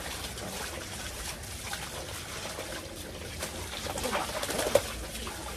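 Water from a garden hose running and splashing over a husky's wet coat and onto concrete as it is scrubbed, busier about four seconds in, with one short sharp knock near the end.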